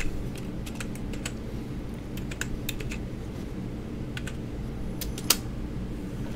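Keys tapped on a computer keyboard in short, irregular clusters, with one louder click about five seconds in, over a steady low hum.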